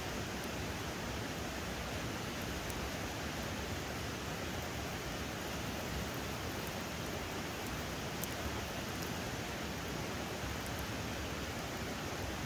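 A river rushing steadily, an even wash of water noise with a few faint ticks on top.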